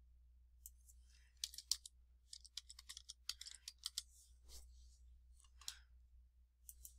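Faint typing on a computer keyboard, with mouse clicks, as irregular quick keystrokes starting about a second in.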